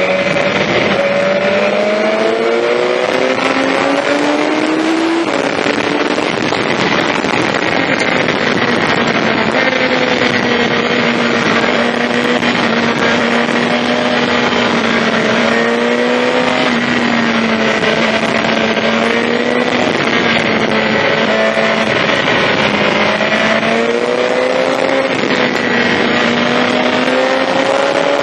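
BMW S1000XR's inline-four with an Akrapovic exhaust, riding under way: the engine note climbs in the first few seconds, holds fairly steady through the middle, and climbs again near the end, over strong wind rush on the microphone.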